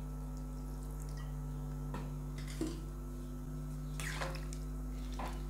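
Chana masala curry bubbling in a pan just after hot water has been added, with a few soft pops a couple of seconds apart over a steady low hum.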